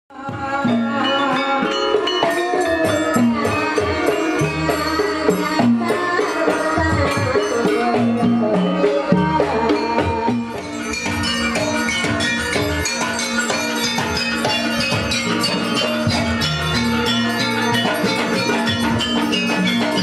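Javanese gamelan music: ringing metal gong-chime and metallophone tones over kendang hand-drum beats, with a brief dip and change in texture about halfway through.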